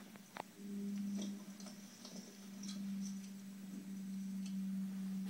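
A steady low hum, one unchanging tone, with faint scattered clicks and ticks over it.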